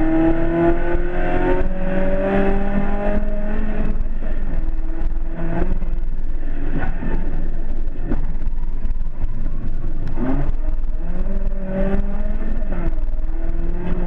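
BMW E30 rally car's engine at full throttle on a stage, heard inside the caged cabin: the pitch climbs through each gear and drops at every shift, several times over, with sharp clicks and knocks in between.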